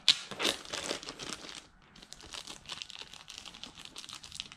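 Clear plastic wrapping crinkling as it is pulled and handled over a flat-packed speaker cabinet panel. The crackling is loudest in the first second and a half, then carries on more softly.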